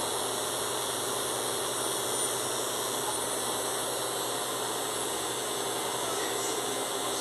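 Kemei hair clipper running at a steady buzz, its guarded blade worked against the side of the head to cut short hair.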